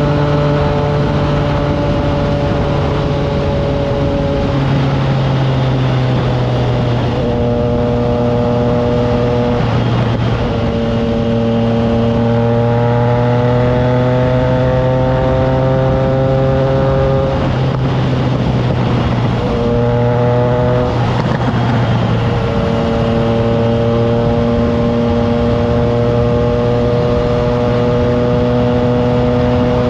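Triumph Trident 660's inline three-cylinder engine through an aftermarket FireTong exhaust, heard from on board at road speed. The note holds steady or rises slowly, with several brief breaks and pitch steps at gear changes, under a layer of wind noise.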